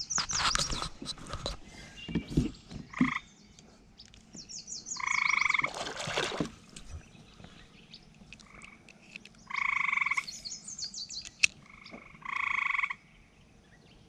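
A frog calling in short pulsed trills, each about a second long, repeated about six times with a few seconds between them. At the very start a small released fish splashes into the water, and a few handling clicks follow.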